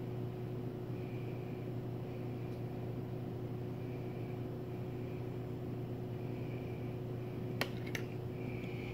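Steady low mechanical hum of room equipment, with two light clicks near the end as a metal fork touches the plastic mixing bowl.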